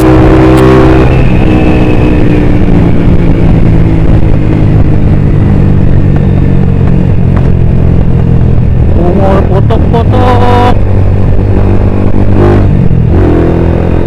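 Motorcycle engine running loudly and steadily while ridden along a road. Its note shifts briefly about nine to eleven seconds in.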